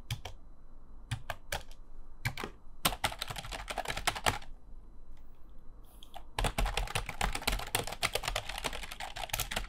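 Typing on a computer keyboard. A few scattered keystrokes come first, then two fast runs of clattering keys with a short pause between them; the second run starts about six and a half seconds in.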